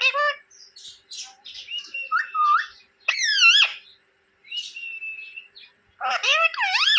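Pet green parrot chirping and calling: short scattered chirps and squawks, broken by loud calls that swoop up and down in pitch at the start, about three seconds in and near the end. A level whistled note comes about five seconds in.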